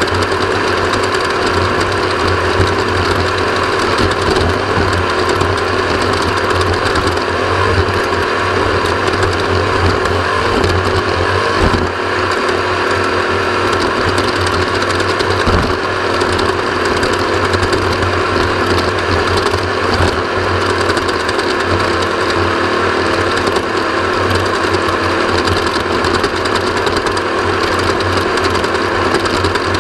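Off-road motorcycle engine running under way at a nearly steady pitch, with a rapid mechanical clatter.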